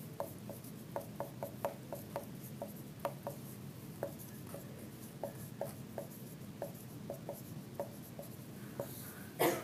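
Dry-erase marker writing on a whiteboard: a string of short, sharp marker strokes, about two or three a second, as letters are drawn out. Near the end there is one brief, louder sound.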